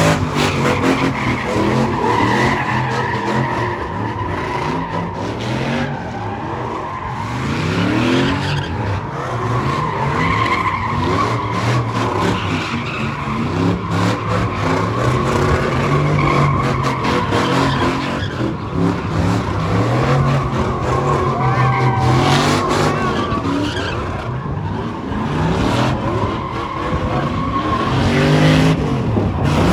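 Cars drifting, with engines revving up and down at high rpm while the tires squeal in a steady, held screech.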